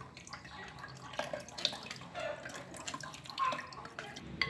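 Cranberry juice dripping and splashing in a glass bowl as crushed berries are squeezed by hand, with scattered small drips and ticks.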